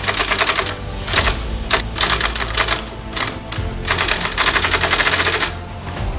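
Industrial cylinder-bed sewing machine stitching leather baseball-glove pieces: a fast needle clatter in several short runs that stop and start, the longest near the end.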